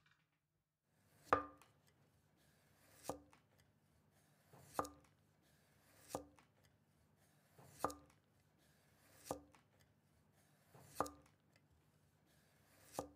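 A kitchen knife chopping down onto a thick round wooden chopping block in slow, even strokes, about one every second and a half, eight in all. Each stroke is a sharp knock with a short woody ring.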